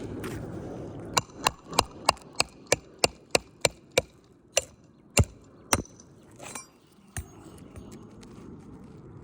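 Hammer taps on roofing, working asphalt-shingle nails loose during shingle removal: a run of about a dozen sharp taps, about three a second, that slows and stops around six seconds in, with one more tap a little later.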